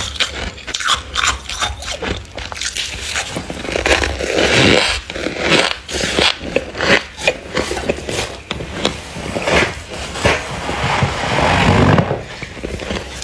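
Thick, fluffy freezer frost being scraped and scooped by hand: a run of short crisp crunching scrapes, with a couple of longer scraping sweeps.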